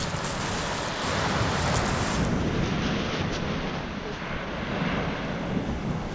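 Wind buffeting the microphone over the steady wash of sea surf breaking on the beach.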